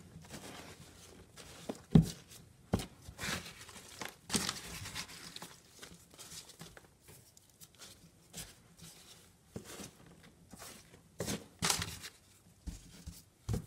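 Shredded cardboard bedding in a plastic worm bin being stirred by a gloved hand: irregular rustling and crinkling of damp cardboard pieces. A few sharp knocks stand out, the loudest about two seconds in.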